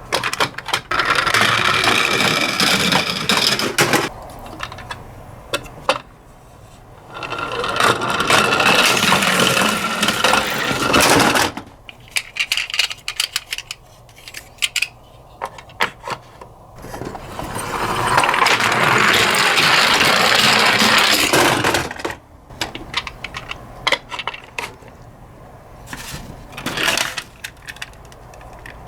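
Die-cast toy cars rolling and rattling down a sloped toy track in three runs of about four seconds each. Between the runs come scattered clicks and clinks.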